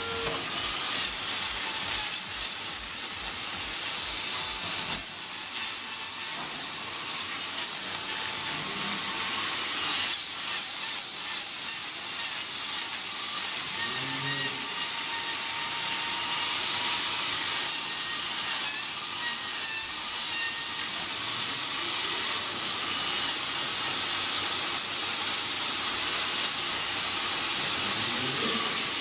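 Electric angle grinder fitted with a hoof-trimming disc, running steadily and grinding down a cow's hoof, a continuous hissing grind.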